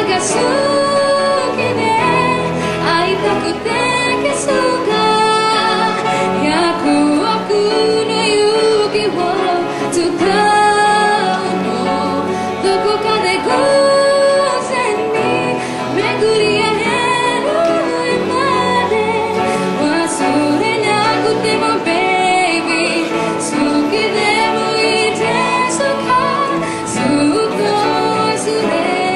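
A female voice singing a Japanese pop ballad live, accompanied by piano and acoustic guitars.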